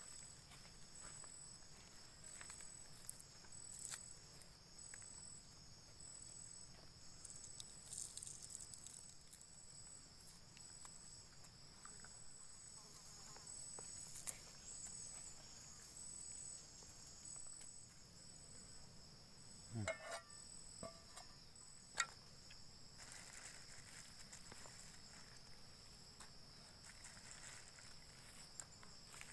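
Faint insect chorus, crickets or similar, making a steady high-pitched drone with a pulsing trill above it, broken by a few faint clicks and knocks.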